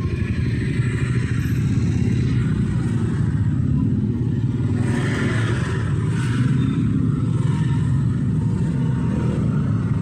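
Slow, congested street traffic of motorcycles and cars, with a steady low engine rumble. A louder rush of a vehicle passing close comes about five to seven seconds in.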